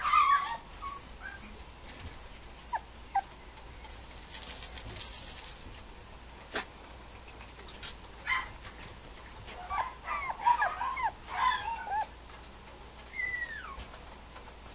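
Mame shiba puppy whimpering in short, high, rising-and-falling whines: one at the start, a quick cluster about ten seconds in and a falling whine near the end. A high, pulsing squeak lasting about a second comes around four seconds in, and there is a single click a little later.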